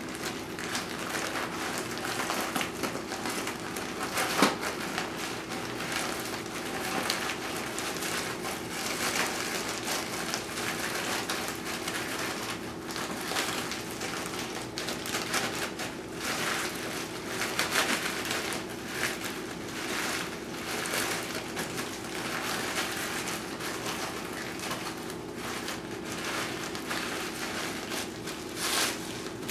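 Plastic zip-top bag crinkling and rustling in irregular bursts as it is handled while cooked chicken is pulled apart by hand, with a sharper click about four seconds in. A steady faint hum runs underneath.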